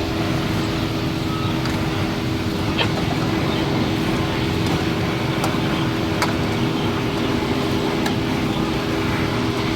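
A steady mechanical hum under an even rushing noise, with a few faint clicks.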